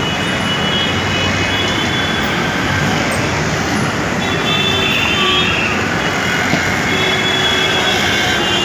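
Dense road traffic at a busy station road, with vehicle horns honking again and again over a steady din. Horns sound near the start, about halfway through and again near the end.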